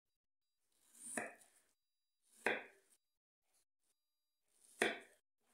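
Kitchen knife cutting peeled apple into small pieces on a wooden cutting board: three cuts, each a short slicing sound that ends in a sharp tap of the blade on the board.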